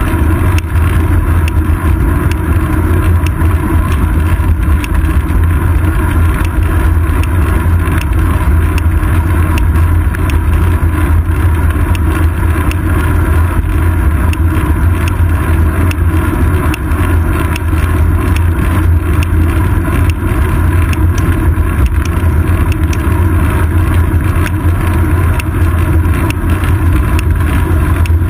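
Steady, loud, deep rumble of wind and road vibration picked up by a GoPro Hero 2 in its housing, mounted on a moving bicycle's seat post.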